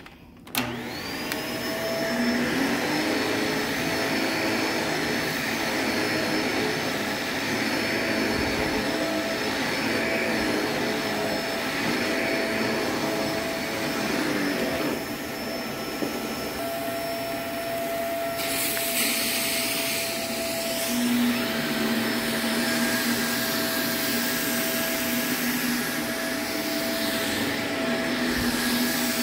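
Shark upright vacuum cleaner switching on about half a second in, its motor spinning up with a rising whine, then running steadily as it is pushed over a rug. A brighter hiss joins in from about eighteen seconds in.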